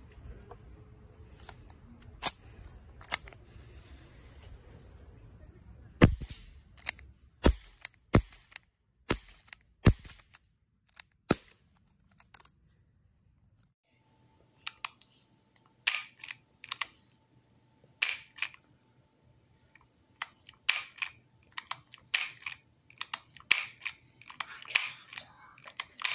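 Crosman SNR357 CO2-powered pellet/BB revolver firing a quick string of shots, sharp cracks roughly a second apart from about six to eleven seconds in. Later come many small metallic clicks and rattles of the revolver's action being worked.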